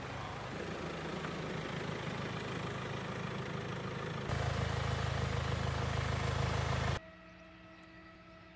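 SUV engine running as the vehicle rolls along a railway track on steel rail wheels, a steady low rumble that steps louder about four seconds in. About seven seconds in it cuts off abruptly to a quiet steady hum with a few faint held tones.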